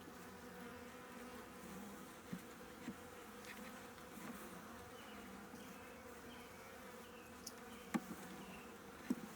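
Honeybees buzzing in an open hive: a steady, low hum of many bees, with a few light clicks about two to three seconds in and again near the end.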